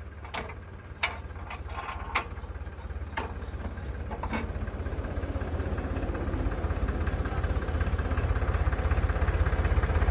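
Tractor-mounted hydraulic post driver working on a steel crash-barrier post: a handful of sharp metal clanks, then a fast, even pounding rhythm that grows steadily louder over the low running of the tractor engine.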